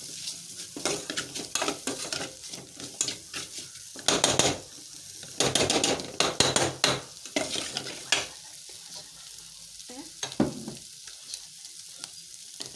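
Tripe (matumbo) frying in oil in a pan, sizzling, while it is stirred and scraped round the pan. The scraping is loudest about four seconds in and again from about five and a half to eight seconds, then eases to mostly sizzling with occasional taps.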